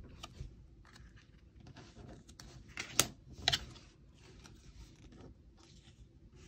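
Stiff paper word pieces being handled and slid over a card on a cutting mat: soft rustling and scraping, with two sharp taps about three seconds in, half a second apart.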